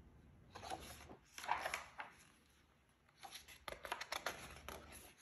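Pages of a hardcover picture book being turned and handled: paper rustling with small clicks, in two spells, about half a second in and again from about three seconds in.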